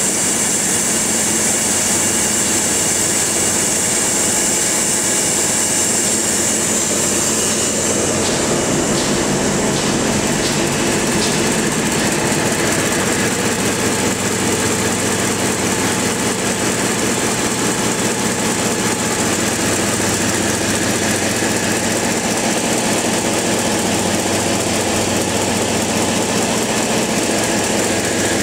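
Large multi-cylinder stationary engine of a gasification plant's generator set running with a loud, steady mechanical din.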